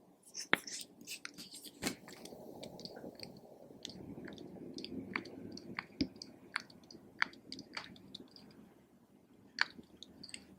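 Clear slime being kneaded and stretched by hand, making irregular sticky clicks and wet pops over a soft squishing, as makeup and glitter are worked into it.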